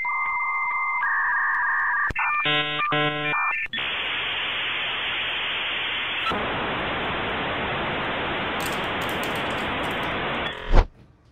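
Dial-up modem connection sound: steady beeping tones that step in pitch, a short burst of several tones together about two seconds in, then a long hiss of static from about four seconds in. It cuts off near the end with a short loud thud.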